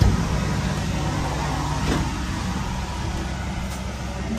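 Cleanroom air shower running: a steady rush of blown air over a constant low fan hum.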